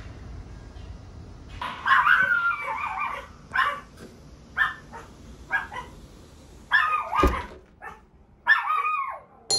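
A small dog yipping and whining: one longer whining call near the start, then a string of short high-pitched yips about a second apart. A sharp knock comes about seven seconds in.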